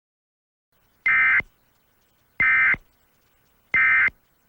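Three short bursts of Emergency Alert System SAME header data tones, each about a third of a second long and a little over a second apart. These are the digital header that opens an EAS alert broadcast.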